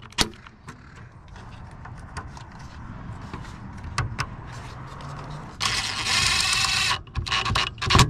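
A cordless impact driver running in one burst of about a second and a half, a little past halfway through, the loudest sound here; before it, a few scattered clicks over low handling noise.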